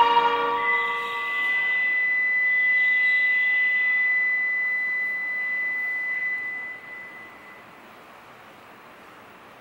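A melody ends within the first second or so. Then a single steady high-pitched electronic tone holds for about seven seconds over a soft hiss and stops, leaving only quiet background noise.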